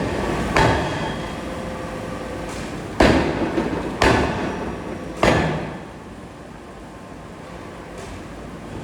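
Four heavy forging hammer blows on steel, each a sharp bang with a short ringing decay, spaced unevenly over a steady factory din.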